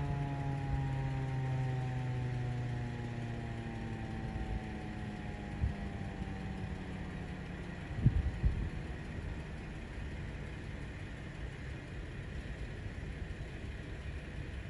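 Federal Signal Model 2001 electromechanical outdoor warning siren winding down after its test: one tone slides slowly lower and fades out over about six seconds. A steady low rumble remains, with a sharp thump about six seconds in and a louder one about eight seconds in.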